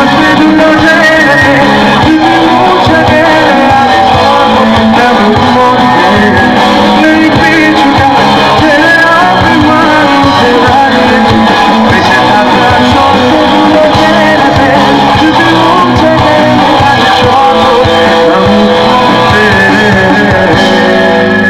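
Bengali rock band playing live: electric guitars and drums, with a sung vocal line.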